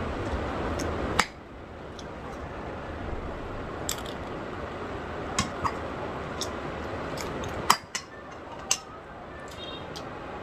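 Eating sounds from crab: sharp, irregular cracks and clicks of crab shell over a steady background hiss, the loudest about a second in and again near the end.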